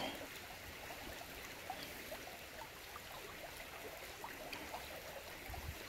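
Faint, steady sound of running water from a small stream or trickle, with many small gurgling notes.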